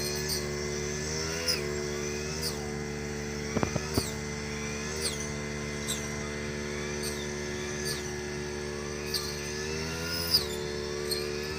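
Brush cutter engine running steadily, its pitch rising a few times as it is throttled up, with scattered short ticks and snaps as it cuts through rice stalks.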